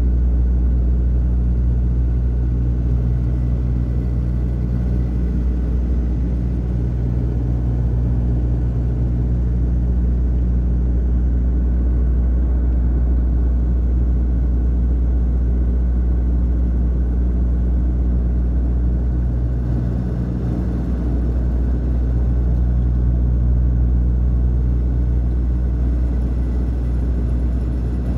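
Turboprop airliner's propellers and engines heard inside the cabin in flight: a loud, steady low drone with several held tones, which thin out briefly twice.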